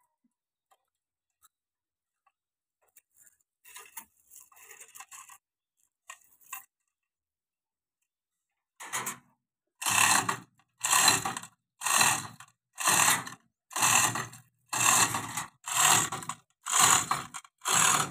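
Manual chain hoist lifting a heavy log: the hoist's chain and ratchet clattering in short strokes about once a second, one for each pull on the hand chain. The strokes are faint and irregular at first and turn loud and steady in the second half.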